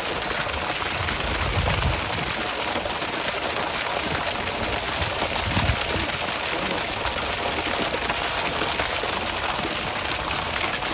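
Water gushing from an open discharge outlet on a fire truck's pump panel and splashing onto wet ground in a steady rushing splash: the truck's water is being drained out to winterize it against freezing.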